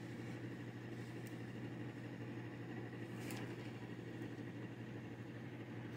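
Steady low mechanical hum of indoor background noise, with a single faint click about three seconds in.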